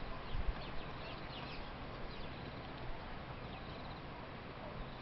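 Steady background hiss with a few faint, high chirps of small birds, mostly in the first two seconds and once more about three and a half seconds in.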